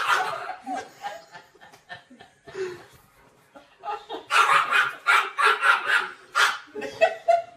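Laughter fading out, then from about four seconds in a dog barking in a quick series of short, loud barks.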